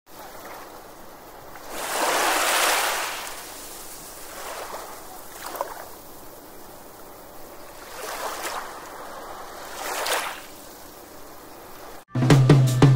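Ocean waves washing in, a steady hiss with a surge every few seconds, the biggest about two seconds in. Music starts suddenly about a second before the end.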